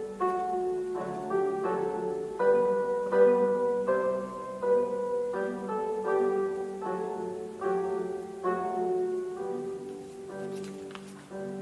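Slow, quiet melody played on an electric stage piano: single notes about two a second, each ringing and fading, over a steady low tone.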